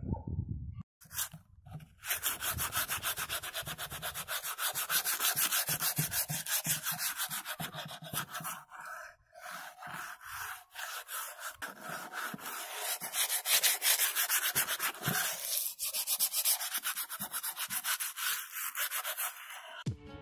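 Sandpaper rubbed by hand over a pallet-wood board in rapid back-and-forth strokes, a steady scratchy rasp that pauses briefly a little before halfway. A short low rumble comes first.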